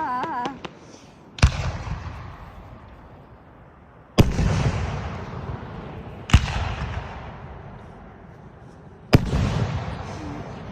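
Aerial firework shells bursting: four loud booms spaced a couple of seconds apart, each trailing off in a long rolling rumble.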